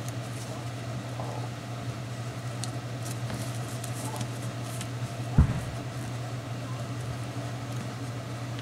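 Paper and cardstock being handled and pressed down on a scrapbook layout: light rustles and small ticks, with one thump about five seconds in, over a steady low hum.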